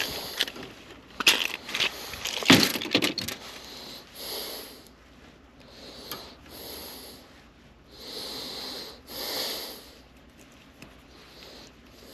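Clicking and rattling of small hardware as hands rummage for a wire nut, followed by about four heavy breaths.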